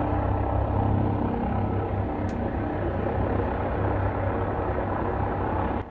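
Helicopter flying overhead: a steady low rotor drone that cuts off suddenly near the end.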